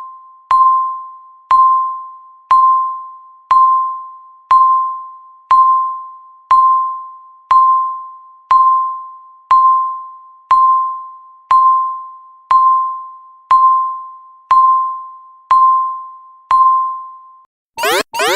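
Countdown timer beeps: a single-pitched electronic ding once a second, each fading quickly, seventeen times in a row. Near the end, as the countdown reaches zero, a loud alarm noise of fast repeated rising sweeps begins.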